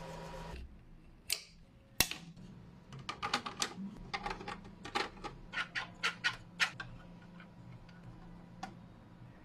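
A brief machine hum that stops about half a second in, then a run of sharp, irregular clicks and taps, two or three a second, dying away near the end.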